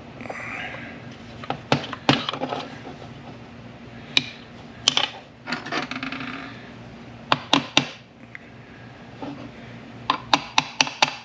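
Sharp metallic clicks and clinks from steel shift-tower parts being handled and nudged into alignment, in scattered small groups with a quick run of about five near the end.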